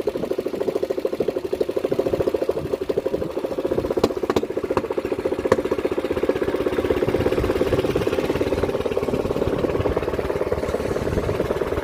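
Small wooden outrigger boat's engine running steadily at low speed, a fast even putter, with a few faint clicks about four to five seconds in.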